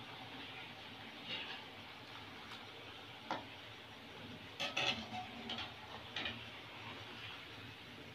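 Sweet potato puas deep-frying in oil on a low flame in a steel kadhai, a steady sizzle, with a metal slotted spoon clicking and scraping against the pan several times, most clearly about five seconds in.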